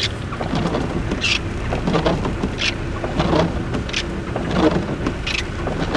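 A car moving on a wet road in the rain, heard from inside: a steady low engine and tyre rumble, with a short hiss that comes back about every second and a half.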